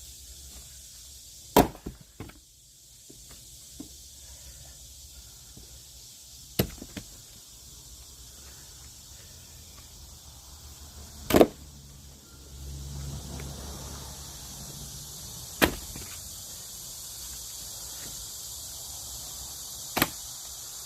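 Logs being split: five sharp blows on wood, four to five seconds apart, the middle one the loudest.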